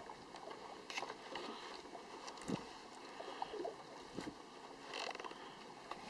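Small waves lapping against the hull of a drifting fishing boat, with a few light knocks and clicks from things handled aboard.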